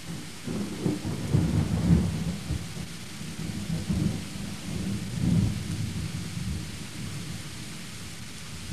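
Thunder rumbling in rolling swells, loudest about two seconds in and again a little past five seconds, over a steady hiss of rain.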